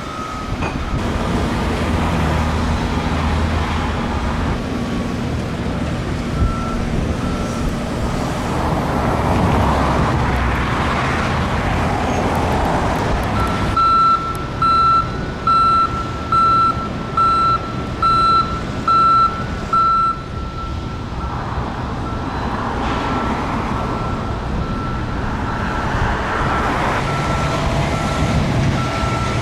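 Reversing alarm beeping steadily, about one beep every three-quarters of a second, loudest for several seconds in the middle and fainter toward the end, over continuous road traffic noise.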